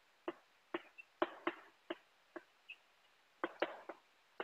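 Chalk writing on a chalkboard: a string of sharp, irregularly spaced taps, some followed by a brief scratch as the stroke drags across the board.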